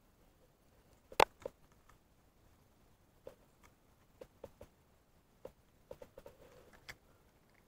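Scattered short clicks and light knocks, with one sharp click about a second in and a cluster of smaller ones in the second half.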